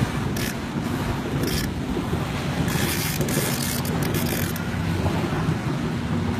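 Wind buffeting the microphone over moving seawater, with a steady low hum underneath and brief gusty rushes.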